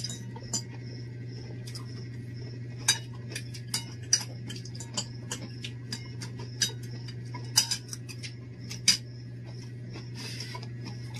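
Spoons and forks clinking and scraping against plates during a meal: scattered sharp clinks, a few of them louder, over a steady low hum.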